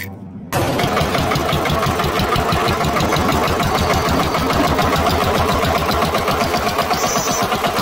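Tractor engine running with a fast, steady chugging beat. It starts suddenly about half a second in.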